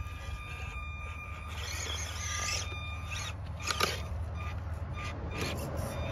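Small electric RC rock crawler's motor and gears whining as it climbs over rocks, over a low steady rumble, with a sharp knock about four seconds in.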